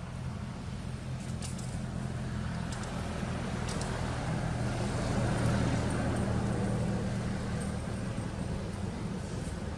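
A low, steady engine rumble that grows louder around the middle and eases off again, with a few faint high ticks.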